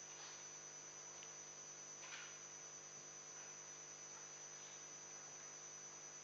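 Near silence: a steady electrical mains hum with faint hiss in the room tone, and a faint brief noise about two seconds in.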